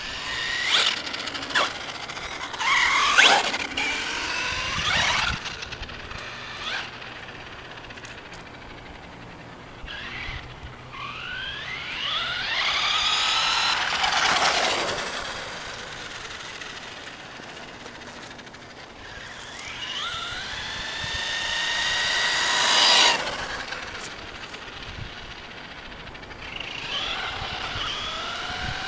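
FS Racing Victory X RC truck's 3000kv brushless motor whining as it drives past on asphalt, three times about ten seconds apart. Each pass is a rising whine that swells to a peak and fades away.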